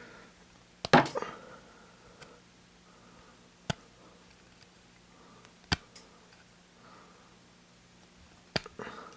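Four sharp snips of a cutter working the insulation off a thin wire, a couple of seconds apart, the first one the loudest, over a faint steady hum.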